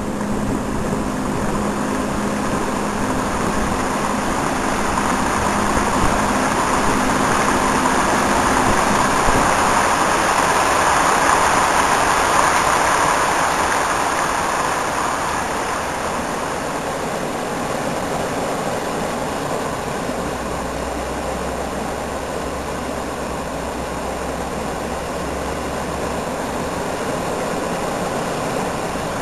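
Water rushing steadily over rocks in small waterfalls and rapids: a continuous hiss that swells somewhat partway through and then eases.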